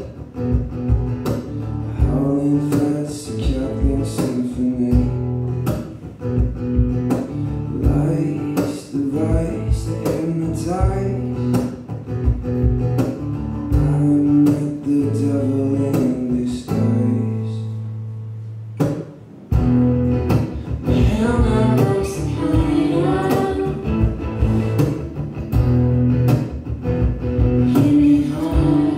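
Live acoustic guitar strummed and picked, with a voice and sharp percussive clicks over a low bass line. About seventeen seconds in, a low note is held and fades almost to nothing, then the playing starts again.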